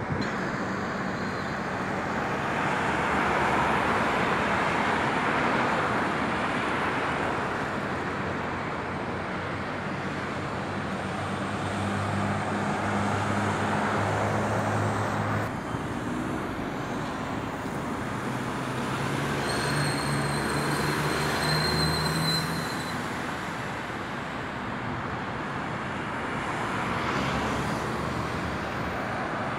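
Street traffic: cars passing one after another, their noise swelling and fading. A vehicle engine's low, steady hum comes in about halfway through and again a little later.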